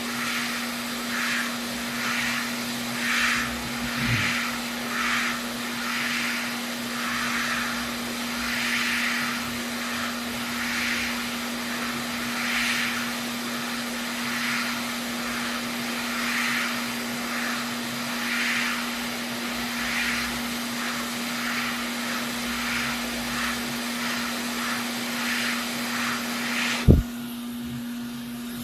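Hot air rework station blowing over the board to solder in a replacement HDMI port: a steady hiss over a constant hum, swelling and fading about once a second. Near the end there is a sharp knock and the hiss cuts out.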